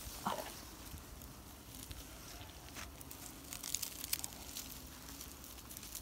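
A smoking bundle of leaves and twigs rustling and crackling as it is handled among tree branches, with scattered sharp crackles that come thickest about three and a half to four seconds in.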